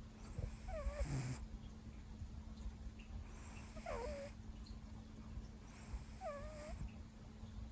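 Siberian cat snoring in its sleep: three slow, noisy breaths about two and a half seconds apart, each with a thin squeaky whistle that dips and rises in pitch.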